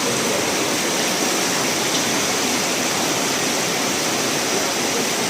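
Steady, even rush of water in a heavy downpour: rain and fast-running floodwater.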